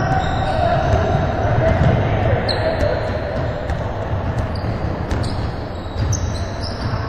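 Basketballs bouncing and players' sneakers squeaking on a hardwood gym floor during a pickup game, with scattered short high squeaks and players' voices in the echoing hall.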